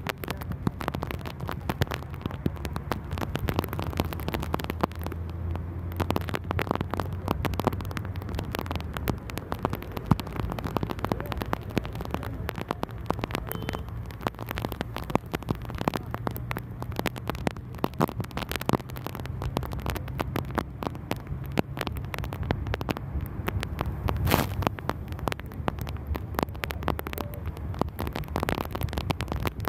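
Bus engine running with a low steady hum inside the cabin, under a dense, irregular crackle of heavy rain striking the window glass.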